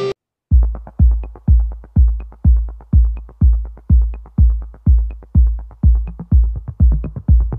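Electronic background music: a deep kick drum beating about twice a second, starting after a brief silence about half a second in, with a faint high click on every other beat.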